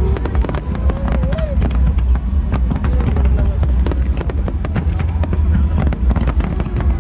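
Fireworks going off in rapid succession: many sharp cracks and pops over a continuous deep rumble of booms.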